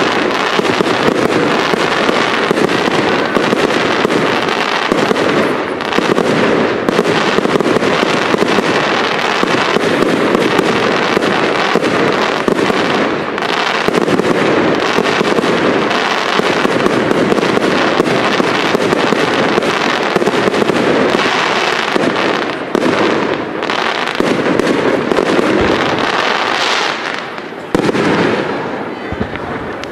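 Aerial fireworks shells bursting in a dense, continuous barrage of bangs and crackles. The barrage thins out over the last few seconds, with one more burst near the end.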